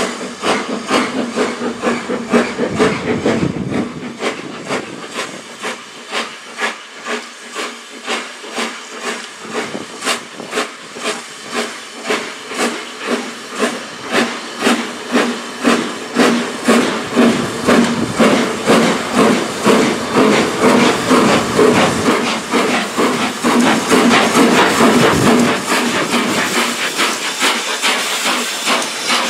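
BR Standard Class 4 4-6-0 steam locomotive No. 75078, a two-cylinder engine, working hard with a train: sharp exhaust beats in an even rhythm over steady steam hiss. It grows louder as it nears and passes.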